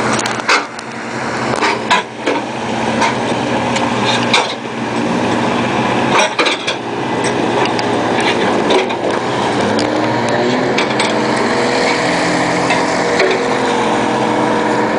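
Fishing boat engine running steadily, with sharp knocks and clanks in the first half.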